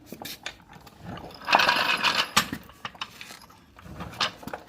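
Metal clicks and knocks from tools and truck suspension parts being worked, with a louder scraping, rattling stretch about a second and a half in.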